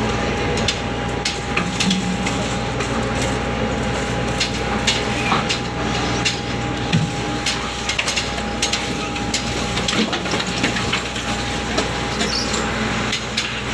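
Ship machinery drones steadily with a constant whine, under frequent irregular knocks and thuds from tuna being handled during unloading.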